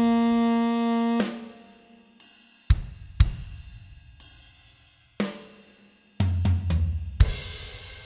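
A tenor saxophone holds a low note, which stops about a second in. A drum-kit backing track plays on through the rest bar, with several cymbal crashes that ring and fade and a low rolling fill near the end.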